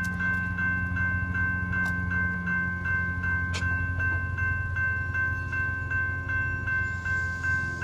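General Signals Type 2 electronic crossing bell ringing in a steady, even rhythm of about two strikes a second: the warning of an activated grade crossing as its gates come down.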